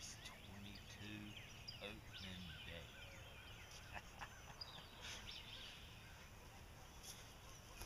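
Faint outdoor ambience of many small birds chirping in the background, with soft rustling as a person gets up off the grass about halfway through.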